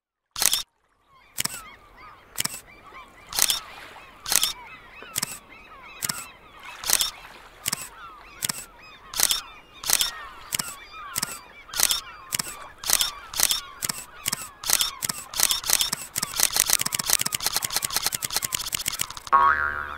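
Camera shutter clicks, about one a second at first, speeding up to a rapid, almost continuous run of clicks, with bird calls underneath. A loud honk comes just before the end.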